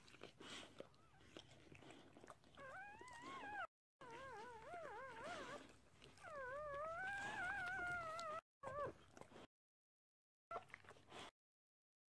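Newborn American bulldog puppy crying in repeated high, wavering squeals, while the mother dog licks it with wet, smacking sounds in the first couple of seconds. The sound drops out completely several times.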